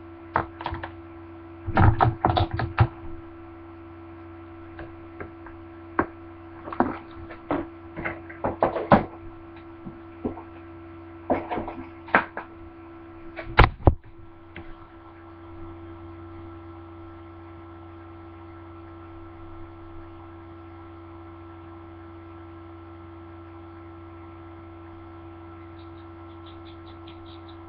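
Scattered clicks and knocks of handling close to the microphone, with a louder knock about 14 seconds in, over a steady electrical hum that carries on alone through the second half.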